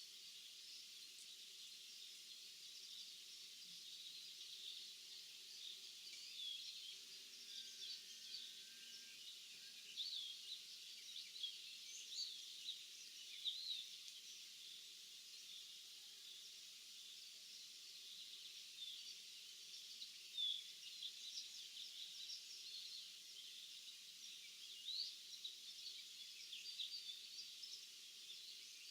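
Faint chorus of small birds in a field chirping and twittering, many short quick calls overlapping throughout, with a faint low hum underneath.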